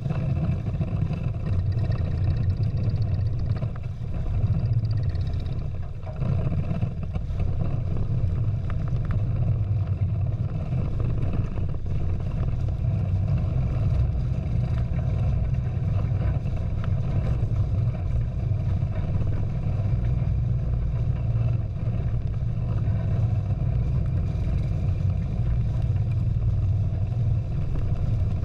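Steady low rumble of wind on the camera's microphone mixed with water rushing along the hulls of a Prindle 16 catamaran under sail.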